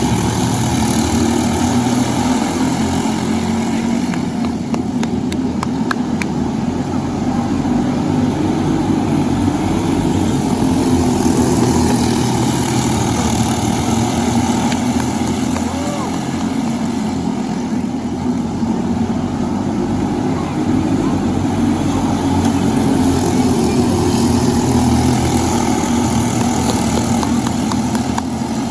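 LO206 racing kart engine, a four-stroke single, running continuously on track, its pitch wavering slowly up and down.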